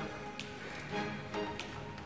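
Faint background music with a steady sustained tone, and two faint clicks about half a second and a second and a half in.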